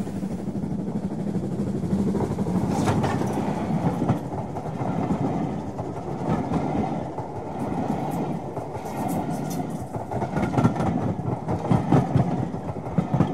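A model train running past close by, a steady rumble with frequent clicks of its wheels over the rail joints.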